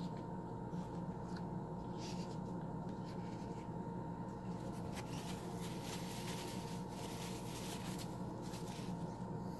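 Steady low hum with faint scratchy rustling over it, the rustling strongest in the second half.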